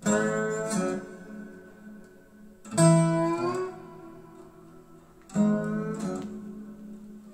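Acoustic guitar intro of a song, played back through small Dantax New Magic loudspeakers: three strummed chords, each left to ring and fade before the next.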